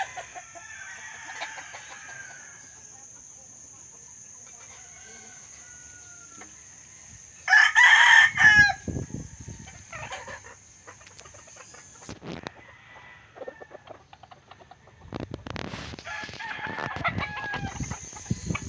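Rooster crowing once, loudly, about halfway through, with quieter chicken clucking before and after.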